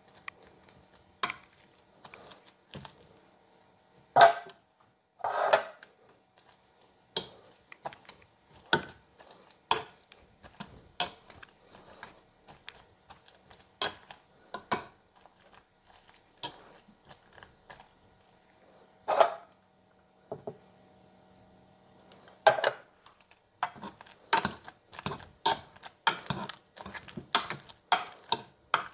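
Wire potato masher pounding boiled potatoes and carrots in a nonstick saucepan: irregular knocks and scrapes of metal against the pan, with a few louder ringing clanks. The strokes come faster near the end.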